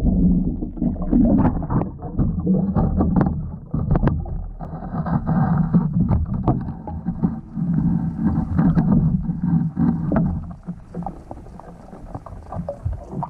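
Muffled underwater sound picked up by a GoPro inside its waterproof housing: a low rumble of moving water with scattered sharp knocks and clicks, growing quieter near the end.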